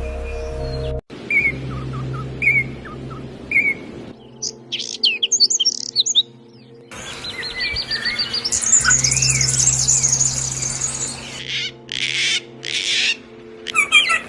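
Caged songbirds singing in a string of short cut-together recordings: separate chirped notes, then fast high whistles and a long dense trilling song in the middle, the bird sound changing abruptly at cuts about one, four, seven and fourteen seconds in.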